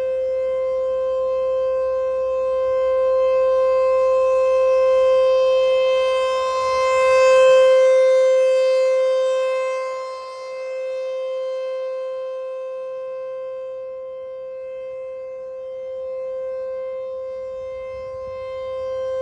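T-128 outdoor warning siren sounding a steady tone at full volume during an emergency alert system test. The pitch holds level while the loudness swells, peaks, then falls away about ten seconds in and stays lower.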